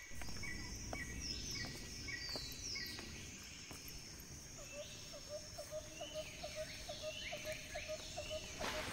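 Wild birds and insects calling: repeated high falling chirps and short ticks, joined about halfway in by a quick run of low repeated notes, about four a second, over a low rumble.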